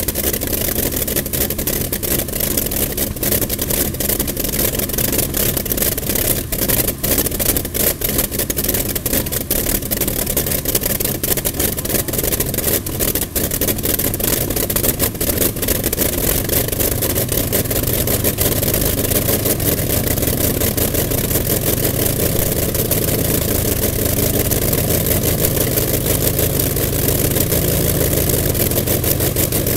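B-29's Wright R-3350 Cyclone 18-cylinder radial engine running on a test stand with its propeller turning. It runs loud and continuously, settling into a smoother, more even note about halfway through.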